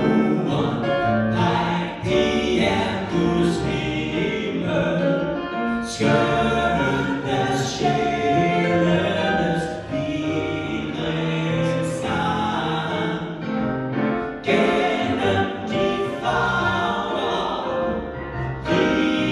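Three male voices singing together into handheld microphones, amplified through the PA.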